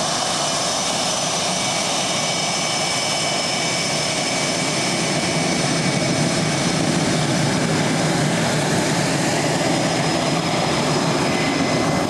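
Twin General Electric F404 turbofans of an F/A-18 Hornet running at taxi power: steady jet noise with a high turbine whine held on a few fixed pitches.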